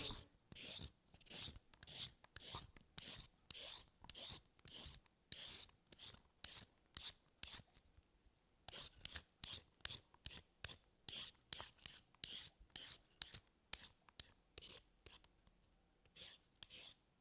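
Repeated short scraping strokes, about two a second, with a brief pause near the middle.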